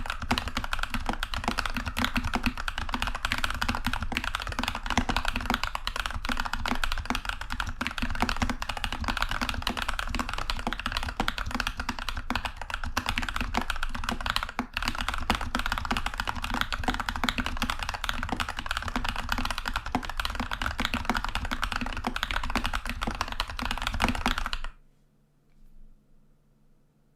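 Typing on a Keychron V2 mechanical keyboard with lubed TTC Heroic Panda tactile switches and Apollo-clone keycaps: a fast, continuous patter of keystrokes. The typing stops abruptly near the end.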